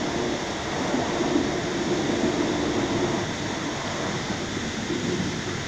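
Interior running noise of an MI2N double-deck RER electric train in motion, a steady rumble with a low drone that eases about three seconds in and returns near the end, heard from inside the carriage.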